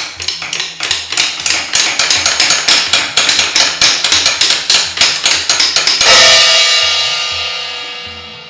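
Rapid hammering strikes, getting faster and louder, played as the sound of chipping away at a wall, over a quiet music bed with a steady low beat. About six seconds in, a crash rings out and slowly fades.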